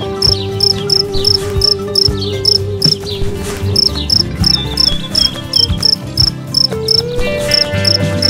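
Cricket chirping steadily, about three chirps a second, over soft background music with long held notes.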